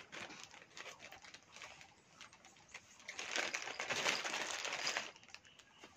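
A packet being opened by hand: a few faint rustles and clicks, then about two seconds of louder crinkling and tearing past the middle.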